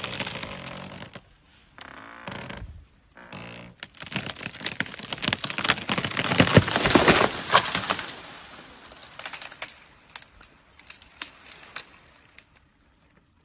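A tree cracking and splintering as an elephant pushes it over: a dense run of sharp snaps and cracks that builds to its loudest about six to seven seconds in, then thins out and fades. Two short sounds come before it in the first four seconds.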